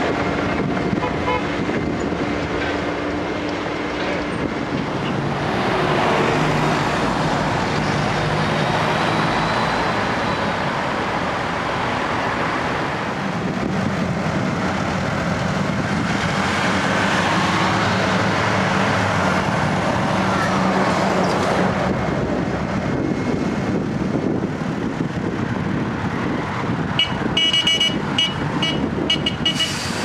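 Diesel engines of heavy road-construction machines running steadily: an asphalt paver, then a wheel loader and a tipper truck. Near the end comes a burst of rapid clicking.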